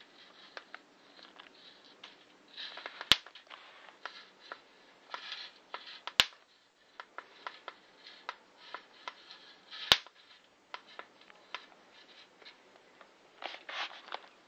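Electric flyswatter racket crackling and snapping as it zaps. Three sharp, loud snaps come about three seconds apart, each just after a short crackle. Lighter ticks and rustles fill the gaps between them.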